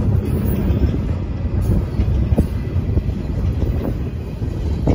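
Freight cars of a mixed train rolling past: a steady low rumble of steel wheels on the rails, with a few faint clicks from wheels crossing rail joints. Strong wind is buffeting the microphone.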